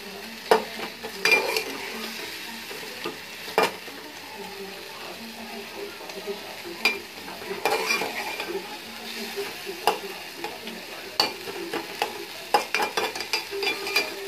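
Spatula scraping and knocking against a metal karahi while stirring chicken and vegetables, which sizzle steadily as they fry on high heat. The strokes come at irregular intervals and grow more frequent near the end.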